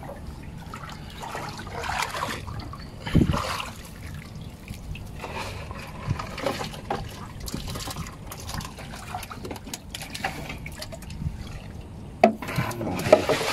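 Water trickling and splashing unevenly, with a heavier thump about three seconds in and sharp knocks near the end.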